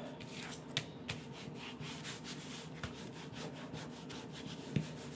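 Hands sliding and smoothing paper and a covered card on a cutting mat: soft rubbing and rustling with light ticks, and a sharper tap near the end.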